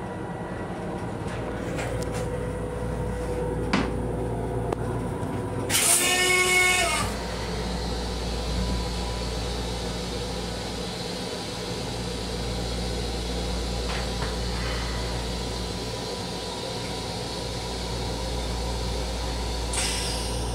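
Steady rumble and hum of an M7 electric railcar, heard inside its small restroom. About six seconds in there is a loud pitched whine with hiss lasting just over a second, and near the end a shorter hiss.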